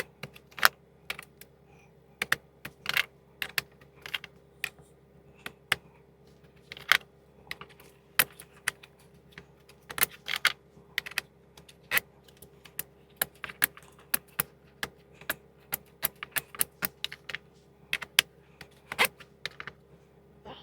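Metal sockets clicking and clacking as they are handled and twisted onto plastic socket-rail clips: irregular sharp knocks, a few at a time, with short pauses between.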